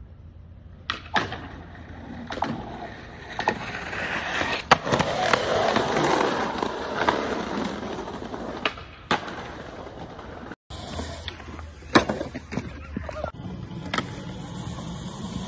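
Skateboard wheels rolling on concrete, getting louder midway, with several sharp clacks of the board popping and landing.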